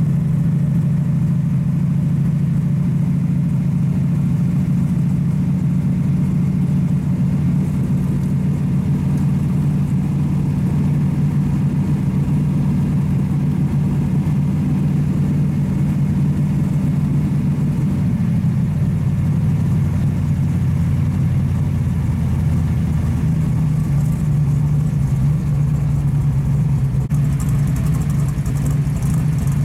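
A supercharged pro street Chevy Nova's engine heard from inside the cabin, cruising at low speed with a steady, deep drone. The note drops a little past halfway through and comes back up a few seconds later.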